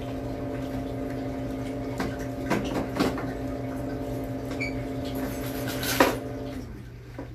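Touch-tank filter pump humming steadily, with a few clicks and knocks of handling. About six seconds in there is a sharp click and the pump's hum cuts off as the filter is switched off, leaving a lower steady hum.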